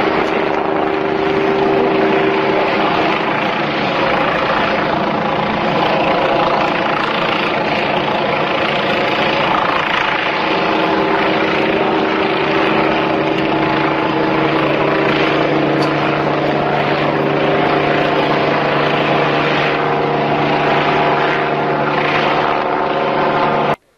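Loud, steady engine drone with several held tones over a rushing noise, cutting off suddenly near the end.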